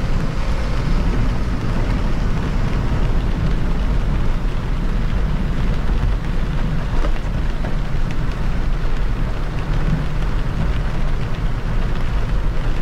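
Car driving on an expressway in rain: a steady low rumble of tyres on the wet road with the hiss of rain and spray.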